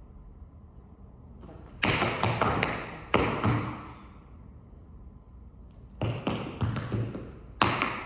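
Tap shoes striking a studio floor in quick runs of sharp taps: one run of taps starting about two seconds in, a pause, then another run from about six seconds in.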